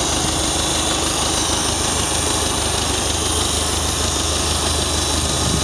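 1949 Farmall Super A tractor's four-cylinder engine idling steadily, running smoothly and evenly.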